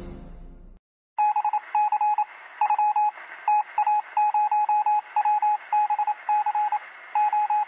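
Intro music fades out in the first second; then, about a second in, a rapid run of electronic beeps at one pitch, some short and some longer, like Morse code, over a steady hiss with a thin, radio-like sound.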